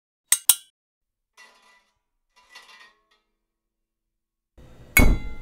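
Sound effects for an animated metal desk lamp moving: two quick sharp metallic clinks, then two softer rattling creaks, and a loud heavy thunk near the end.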